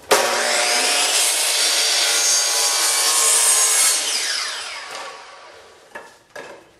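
Sliding compound miter saw starting and cutting through wooden crown molding for about four seconds, then winding down with a falling whine once the blade is released. A couple of light knocks follow near the end.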